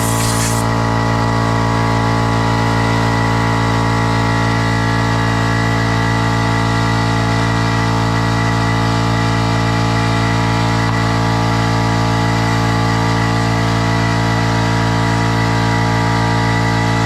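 A motor runs at a steady speed, with an even mechanical hum. A hiss of compressed air blowing cuts off about half a second in.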